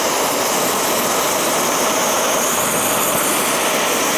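Propane torch flame burning with a steady, unchanging rushing hiss.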